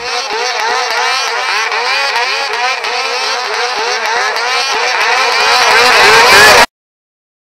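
Mountain snowmobile engine revving in deep powder, its pitch surging up and down several times a second. It grows louder and then cuts off suddenly.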